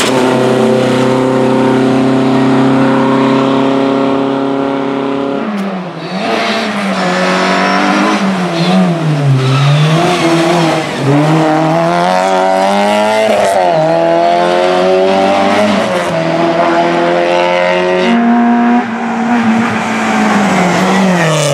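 Historic rally cars driven flat out one after another on a tarmac stage, among them a VW Beetle and an Opel Corsa. The first engine holds a steady note for about five seconds, then a second engine revs up and down through gear changes with some tire squeal, and another engine note falls away near the end.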